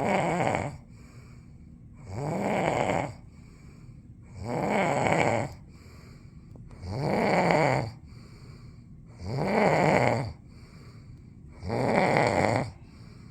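Snoring in a steady rhythm: six loud snores about two and a half seconds apart, each lasting about a second and rising, then falling in pitch.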